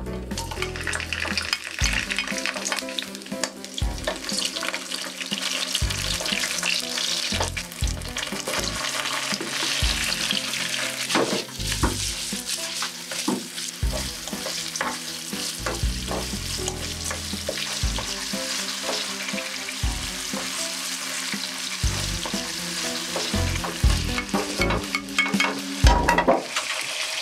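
Food sizzling in hot oil in a frying pan while it is stirred, with a steady crackle and frequent small clicks and scrapes.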